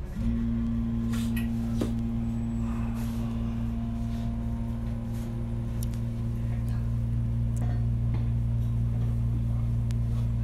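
A steady low machine hum switches on suddenly just after the start and runs on evenly, with a few light knocks and clicks over it.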